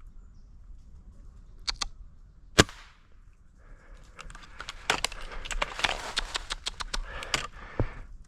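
A single shot from a .22 Gamo Swarm Fusion break-barrel air rifle, a sharp crack about two and a half seconds in, after a couple of faint clicks. It is followed by a few seconds of clicking and rustling.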